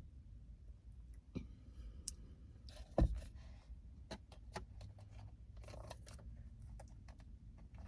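Eating and handling sounds from a mukbang meal: scattered light clicks and short rustles of food and packaging being handled, with one louder thump about three seconds in.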